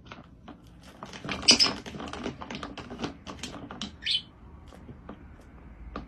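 A rosy-faced lovebird's claws and beak clicking and scrabbling on a plastic swing-lid bin as it pushes past the lid, with rustling of the plastic bin bag. A couple of short high squeaks come about a second and a half and four seconds in.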